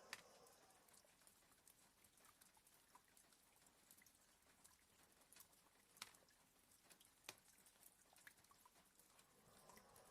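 Near silence: faint light tapping of rain on a window pane over a soft hiss, scattered drops with a few sharper ticks, one right at the start and two more about six and seven seconds in.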